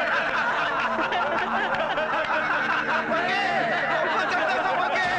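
Several men laughing hard together, cackling and chuckling over one another.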